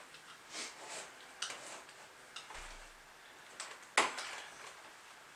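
Scattered light clicks and knocks from a PVC pipe push pole being handled and regripped, with one sharp click about four seconds in.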